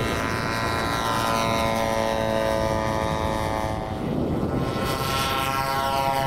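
Petrol engine of a large scale radio-control model plane, a single-engine trainer model, running with its pitch slowly falling as it flies low past. About four seconds in it gives way to the steady running of a twin-engine scale model's engines on its take-off run.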